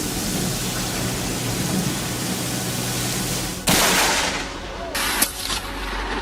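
Steady rushing noise, then about two-thirds of the way in a sudden loud crack of a close lightning strike that dies away over about a second, followed by a second sharp crack about a second and a half later.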